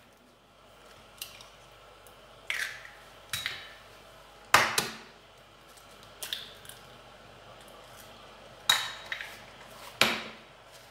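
Eggs being tapped and cracked against the rim of a mixing bowl: a series of sharp, irregularly spaced knocks, several with a short ring.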